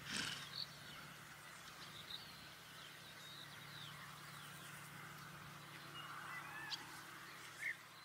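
Birds chirping and calling in short scattered notes over a steady low hum, with a brief loud burst of noise right at the start.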